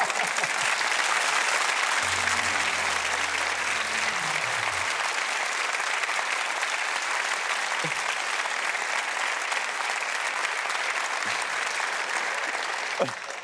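Studio audience applauding steadily; the clapping dies away near the end.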